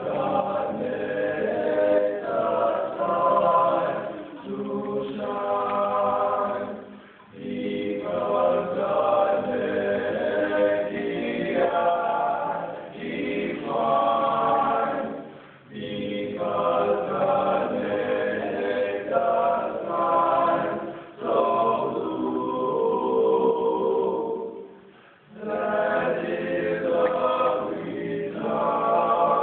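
A high school choir singing, in phrases broken by several short pauses.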